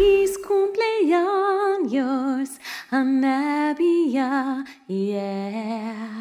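A woman singing a slow melody with vibrato, about six held notes, the last one held longest and fading near the end.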